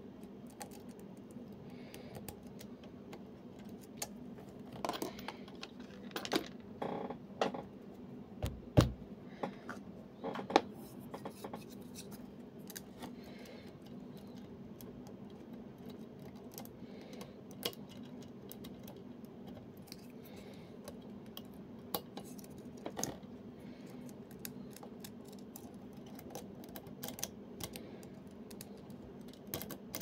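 Lock pick and tension wrench working the pins of a Yardeni 6-pin Euro profile pin-tumbler cylinder: scattered light metallic clicks and scrapes, busiest between about 5 and 11 seconds in. One heavier knock comes about 9 seconds in, and a steady low hum runs underneath.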